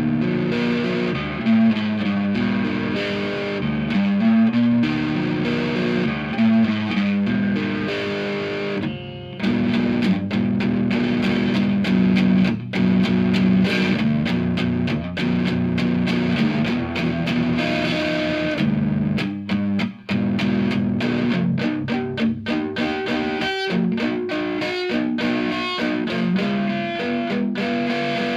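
Reville MV-X electric guitar with both P90 pickups selected (middle position, tone control on) played through a Monoprice 15-watt tube amp with the gain at maximum, giving a distorted tone. The notes ring out, with a brief break about nine seconds in and choppier, shorter strumming in the second half.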